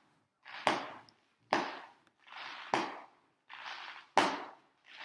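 Fireworks heard from inside a house: a run of about four sharp bangs roughly a second apart, each with a short hiss leading into it.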